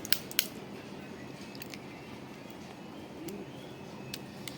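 A few sharp clicks from hand tools working an Ethernet cable and its RJ45 connector: two in the first half second and two fainter ones near the end, over a steady low room hum.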